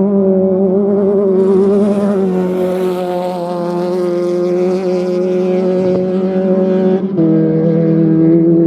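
Off-road race vehicle's engine held at high revs, running at one steady pitch that drops a little about two seconds in and again near the end. A rushing hiss runs through the middle stretch.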